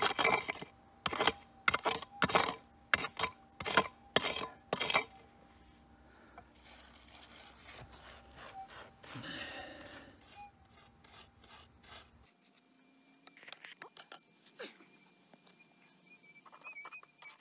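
A digging pick striking and scraping hard, rocky ground, about ten quick blows in the first five seconds while digging out a detector target lodged in rock, then lighter scraping.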